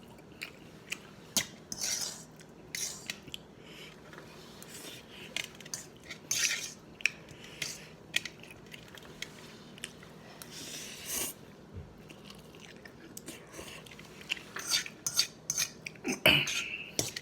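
Someone eating Korean spicy noodles with ground pork: a utensil clicks and scrapes against the bowl again and again, with chewing and a few short slurps in between.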